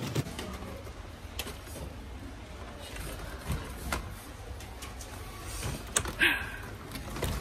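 Plastic shopping cart rolling along a supermarket floor, its wheels rumbling and the basket rattling, with a few sharp knocks.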